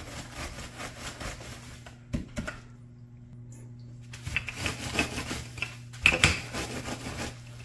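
Croutons being crushed into crumbs inside a plastic zip-top bag: irregular crunching and plastic crinkling, with a short lull around the middle. A steady low hum runs underneath.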